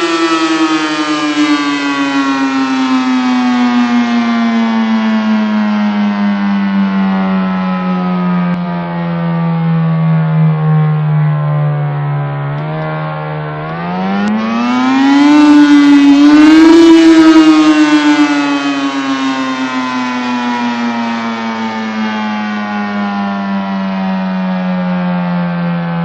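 ACA P-15 outdoor warning siren winding down, its pitch falling slowly. About halfway through it winds back up for a few seconds, at its loudest there, then coasts down again.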